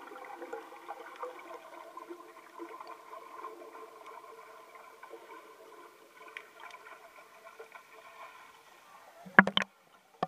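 The faint tail of a song fading out, its held notes slowly dying away. About nine and a half seconds in come a few sharp knocks.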